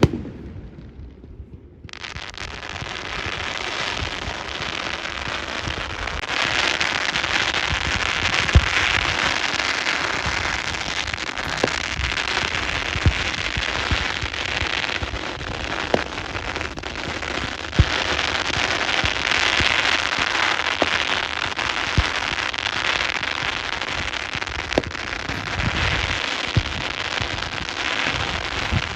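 Fireworks display: after a quieter first two seconds, a dense, continuous crackle of fireworks sets in, with single sharp bangs every second or two.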